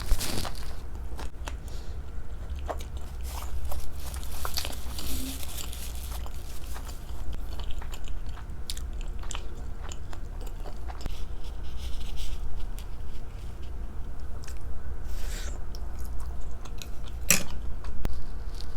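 Close-miked chewing and wet mouth sounds of someone eating sushi, with many small smacks and clicks and a sharper click near the end, over a low steady hum.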